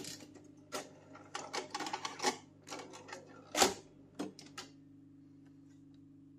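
Akai GXC-60D cassette deck's piano-key transport controls and cassette mechanism clicking and clacking, a run of sharp clicks with one loud clack about three and a half seconds in. Then a faint steady hum from the deck.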